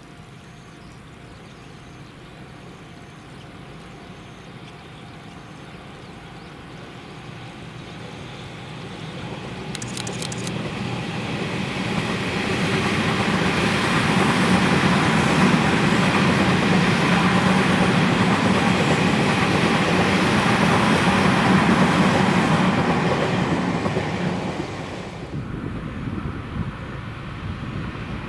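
Tobu 50090-series electric multiple unit running past on the line: the rumble of wheels on rail builds over about ten seconds, stays loud for several seconds as the cars go by, then drops off sharply near the end.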